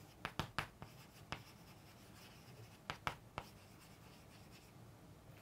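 Chalk writing on a chalkboard: faint scratching strokes with sharp taps as the chalk meets the board, in small clusters near the start, at about a second and a half, and around three seconds in.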